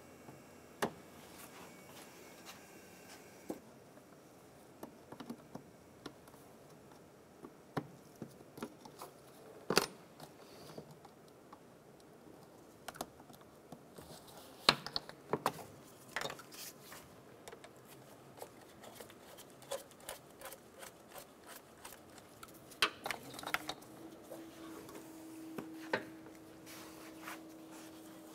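Scattered clicks and light knocks of hard plastic under the hood as the air box, its intake duct and a wiring connector are unclipped and handled, with a few sharper snaps. A faint steady hum comes in near the end.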